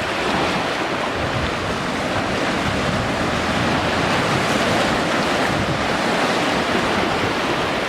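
Ocean surf washing steadily on the beach, with wind noise on the microphone.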